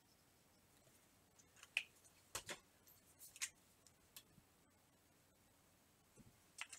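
Marker pen drawing on a board: a few short, faint scratches and taps scattered through near silence.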